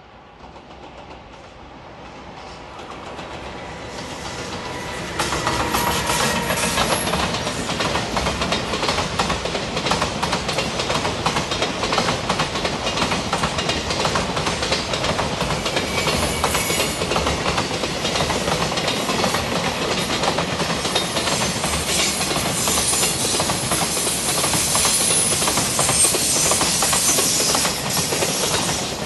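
A JR Freight container train hauled by an EF210 'Momotaro' electric locomotive passing at speed. The sound grows as the train approaches and jumps up about five seconds in. Then the long line of container wagons rolls past with a steady clatter of wheels on rail.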